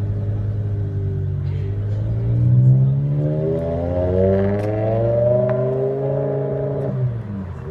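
BMW M5 E60's 5.0-litre V10 engine accelerating away through its exhaust, which the uploader takes for an Eisenmann. The engine note climbs steadily in pitch for about six seconds, then drops and fades near the end.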